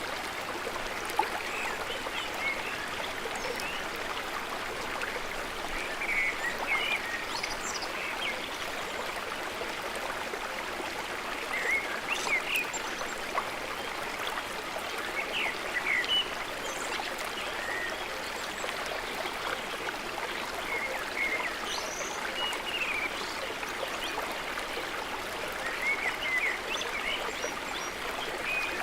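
Steady rush of flowing water, like a stream, with short bird chirps scattered every second or two.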